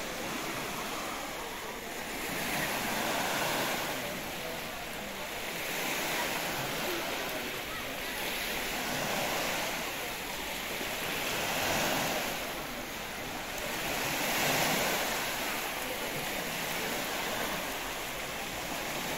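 Small sea waves breaking and washing up onto a sandy beach, the hiss of surf swelling and falling every few seconds.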